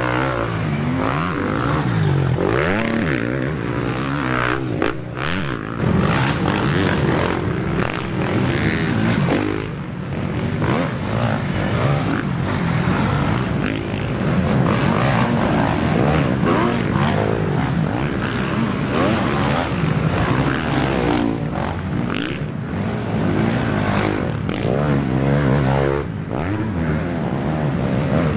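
Several motocross bikes racing on a dirt track, their engines revving hard with pitch rising and falling constantly as riders work the throttle and change gear. The sound grows as a pack of bikes comes up the hill towards the end.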